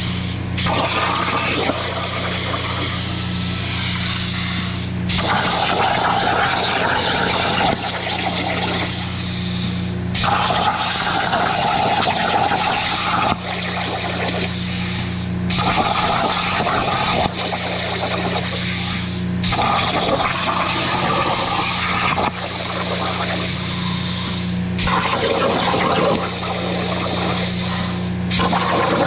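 Hypertherm Powermax 45 XP plasma cutter on a CNC table cutting thin sheet steel: a loud, steady hiss of the plasma arc and air jet, which breaks off for a moment about every four to five seconds as it moves from one cut to the next. A steady low hum runs underneath.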